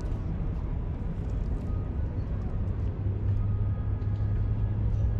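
Low, steady rumble of distant city traffic, swelling about three seconds in.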